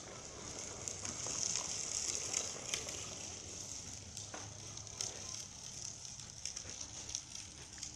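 A steady high-pitched hiss, with scattered light clicks and taps.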